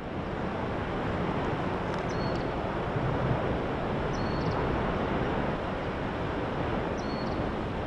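Steady rushing wind buffeting an outdoor microphone, heavy in the low end.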